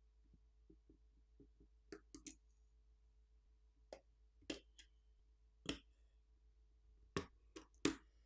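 Small sharp clicks and taps of a thin pry tool against a smartphone's internals as flex cable connectors are popped off the board. The clicks are irregular, about a dozen, with the loudest ones in the second half.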